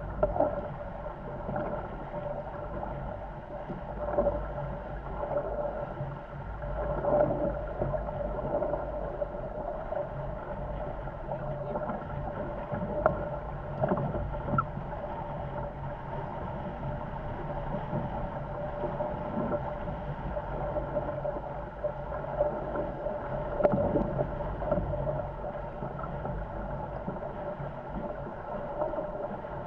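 Corsair F-24 MKII trimaran under sail at speed in strong wind: a continuous rush of wind and water past the hulls with a steady hum underneath. Louder surges of water come several times as the boat drives through the chop.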